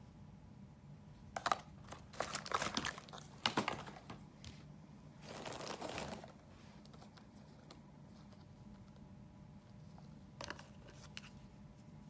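Clear plastic packaging crinkling and rustling in the hands: clusters of crackles from about one and a half to four seconds in, a longer rustle around six seconds, and a brief crackle near the end, over a faint steady low hum.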